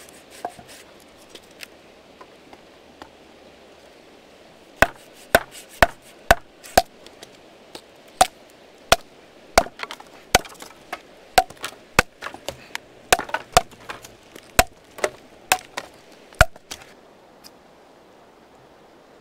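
Wood being chopped: a few light knocks, then a run of sharp strikes about two a second that stops near the end.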